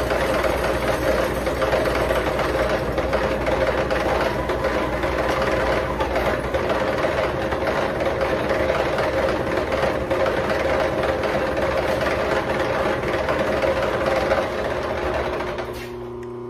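Milling machine taking a facing cut across the cast iron flange surface of an exhaust manifold, a steady machining noise that fades out near the end.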